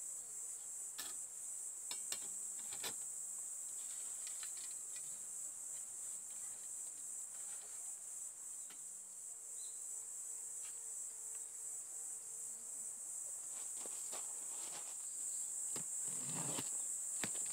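Steady high-pitched chorus of chirring insects. A few light clicks from a metal mosquito-coil holder being handled, and about a second before the end a rustle and scrape of a cardboard box being opened.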